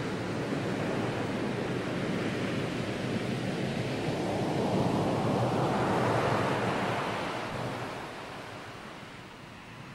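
A rushing noise like surf or wind, with no distinct tones, swelling to a peak about five to six seconds in and then fading.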